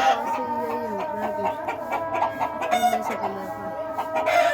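Birds calling: many overlapping, repeated pitched calls that start and stop every fraction of a second.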